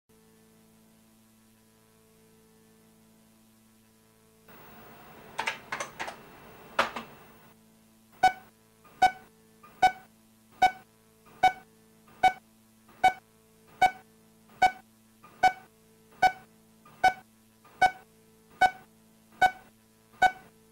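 A faint electronic hum, then a burst of hiss with a few sharp clicks, then a steady electronic beep repeating about every 0.8 seconds, sixteen times, each a short pitched tone.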